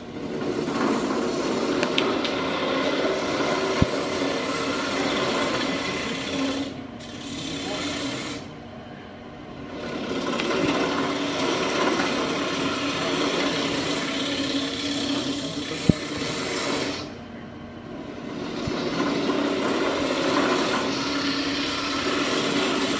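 A round-nose lathe tool scraping out the inside of a wood piece spinning on a wood lathe, a steady rough cutting noise. Twice it drops off for a second or two, while the lathe keeps running.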